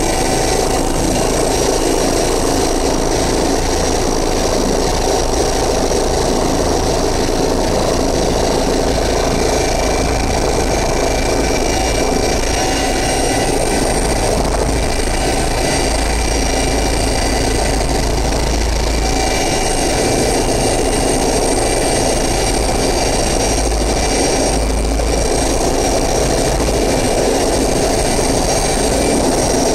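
Small police helicopter heard from inside its cockpit while manoeuvring low towards its helipad: a steady, loud din from the rotors and turbine engines, with a deep low rumble and several steady high whining tones over it.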